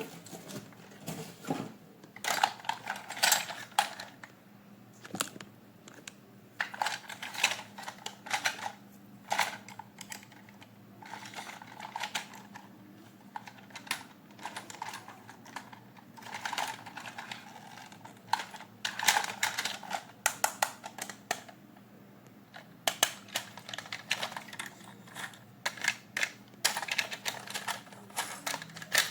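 Hands handling toys and their packaging: irregular clusters of sharp clicks and short rustles of plastic and cardboard.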